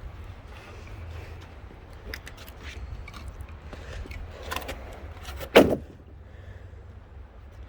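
Sawn elm boards being handled: light clicks and scraping, then one sharp knock about five and a half seconds in, over a low steady rumble.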